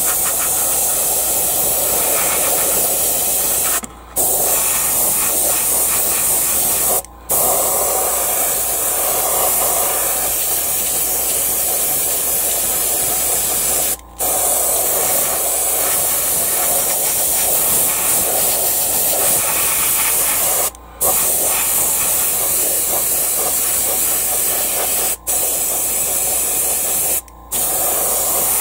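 Iwata HP-C Plus airbrush hissing steadily as it sprays light dust coats of paint, with six brief breaks where the trigger is let off.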